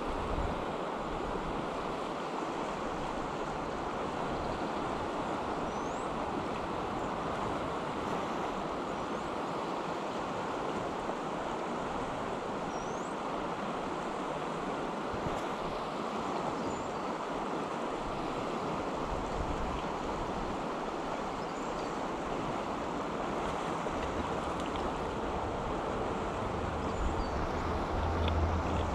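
Steady rush of the East River's current, an even, unbroken sound of flowing water. A low hum comes in near the end.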